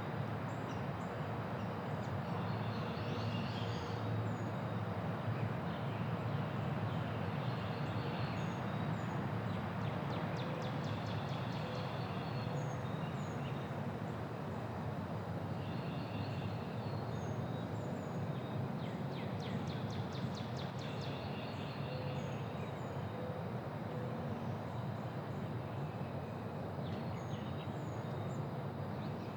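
Quiet neighbourhood ambience: a steady low hum of distant traffic, with birds chirping now and then. Two bursts of rapid trilling come about a third and two-thirds of the way through.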